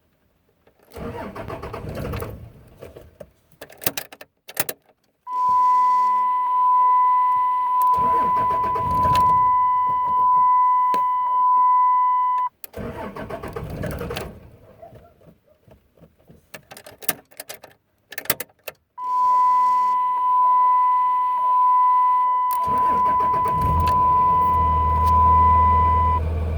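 Starter cranking a 5.9L Cummins diesel in a hard start, with a steady high whine: two long cranks of about seven seconds each with a break between. On the second crank the engine catches near the end and settles into a low diesel idle.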